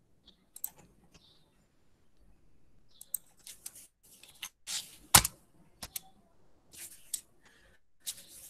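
Computer keyboard keys and clicks in short, irregular bursts, with one louder click about five seconds in.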